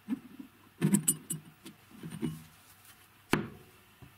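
Light metallic clinks, taps and rattles of steel jigsaw blades and a steel tube being handled and set down on a wooden bench, busiest about a second in, with one sharp click a little after three seconds.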